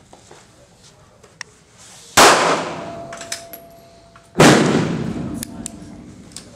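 Two shots from a Smith & Wesson Bodyguard 380 .380 ACP pocket pistol, about two seconds apart, fired slowly. Each trails off over a second or so.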